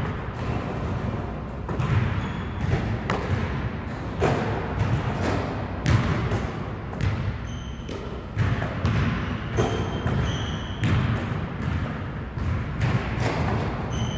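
A basketball being shot, caught and bounced on a hardwood gym floor during rapid layups, with irregular thuds about once a second as it hits the floor, backboard and rim. A few short high squeaks come in between.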